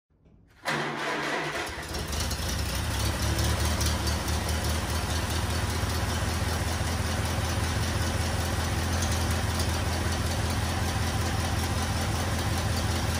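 An engine starts abruptly about a second in and then runs steadily at idle, with an even low-pitched running note.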